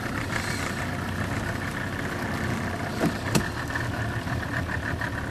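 Outboard motor running steadily at low trolling speed, with a fast regular flutter. Two short sharp sounds about three seconds in.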